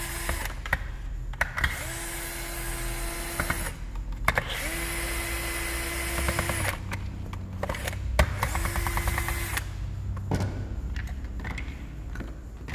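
Cordless screwdriver backing out engine screws in four short runs, each spinning up and winding down, with a few clicks of screws and tools being handled in between.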